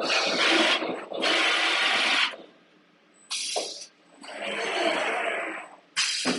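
A machine running in five short bursts of hissing, whirring noise, each half a second to a second long, starting and stopping abruptly with brief pauses between.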